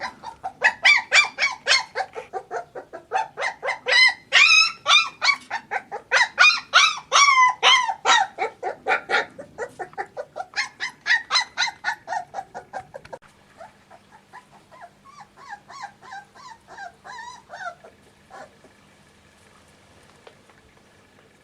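26-day-old Small Münsterländer puppies whining and yelping in rapid high-pitched cries, about four a second. The cries turn fainter about two thirds of the way through and die away near the end.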